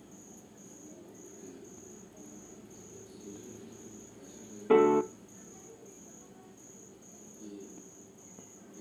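Cricket chirping in the background: a steady run of short, high chirps, a few a second. A single brief vocal sound comes about five seconds in.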